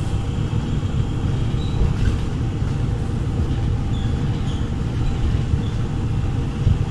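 Steady low rumble of a moving Philippine National Railways commuter train, heard from inside the passenger car.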